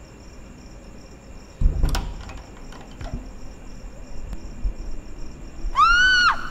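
Steady night-time cricket chirping. About one and a half seconds in comes a heavy thud, and near the end a short high call that rises and falls in pitch.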